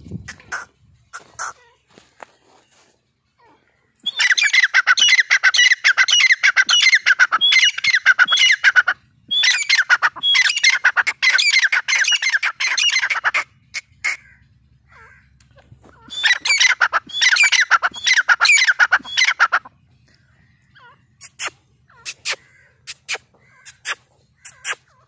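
Grey francolin calling in three long bouts of loud, rapid, shrill notes, each lasting several seconds, with a few short sharp chips near the end.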